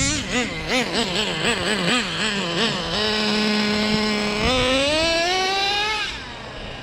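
Traxxas Jato 3.3's small nitro two-stroke engine revving in quick throttle blips, about three a second. It then holds a steady high rev and climbs in pitch as the car accelerates away, fading about a second before the end.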